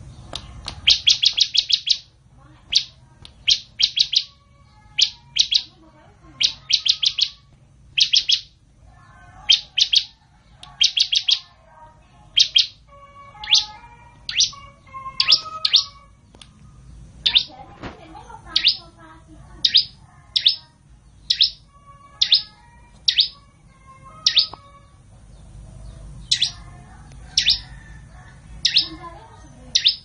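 Bar-winged prinia (ciblek) singing: loud, high, sharp chirps, a fast run of notes about a second in, then short chirping phrases repeated roughly once a second.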